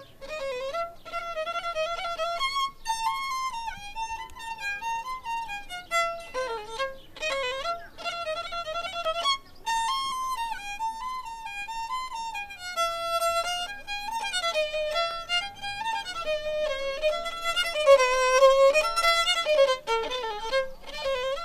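Background music: a solo violin playing a slow, winding melody with sliding, wavering notes.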